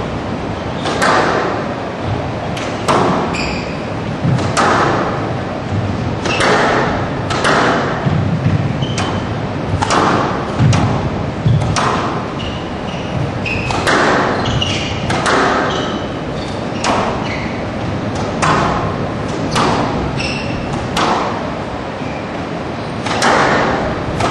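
Squash rally: the ball cracking off rackets and the walls about once a second, with short high squeaks of shoes on the court floor between strokes.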